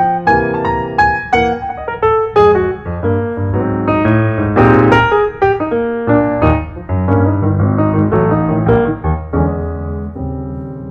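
Background piano music: a flowing run of struck notes that thins to held chords and fades away near the end.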